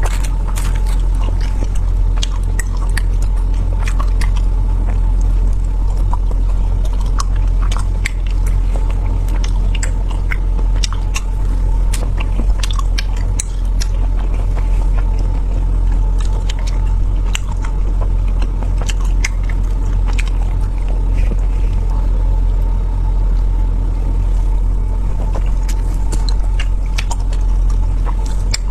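Close-miked eating: chewing and biting with many sharp wet clicks, over a steady low rumble and a faint steady hum.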